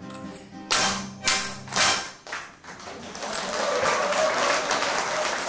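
A harmonica ensemble ends the piece with three short, loud accented chords about half a second apart. Audience applause starts about two and a half seconds in and grows to a steady clapping.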